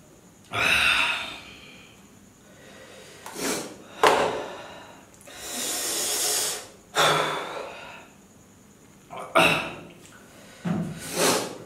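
A man breathing hard through his mouth in short sharp gasps and one long blown-out exhale near the middle, his reaction to the mouth burn of an extremely hot chili chip.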